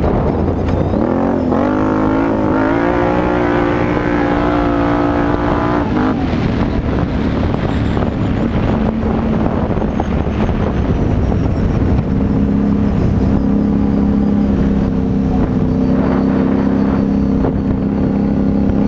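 Can-Am Renegade 850 XXC quad's Rotax V-twin running through a Yoshimura exhaust while riding. It revs up about a second in, holds high revs for a few seconds and eases off, then settles to a steady lower pitch from about twelve seconds in.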